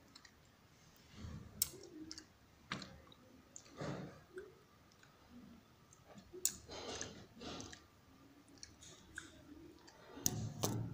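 Handling noise of a phone being moved against a window frame: scattered, irregular clicks and light knocks, with a cluster of louder ones near the end.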